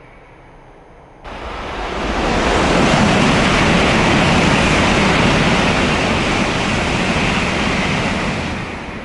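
Shinkansen high-speed train passing through the station without stopping: a loud, even rushing noise that starts abruptly a little over a second in, holds for about seven seconds, then fades near the end.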